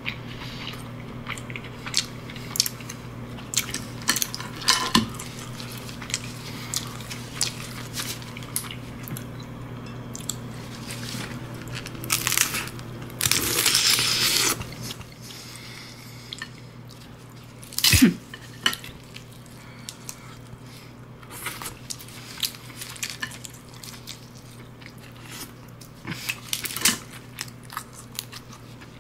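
Cooked crab shell being cracked and pulled apart by hand, with close-miked chewing and biting between. A long crackling crunch comes about halfway through, and a single loud sharp crack a few seconds later.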